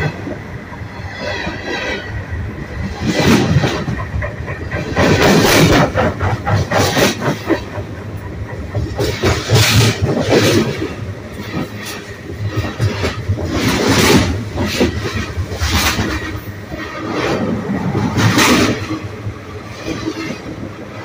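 Freight train cars rolling directly overhead, heard from between the rails: steel wheels rumbling and clattering on the track, with a loud surge every second or two as each set of wheels passes over.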